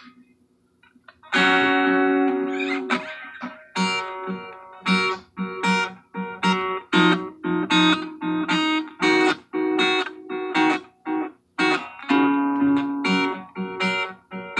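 Acoustic guitar strummed: after a short pause, a full chord rings out about a second in. It is followed by a steady run of short, chopped chords, each damped before the next.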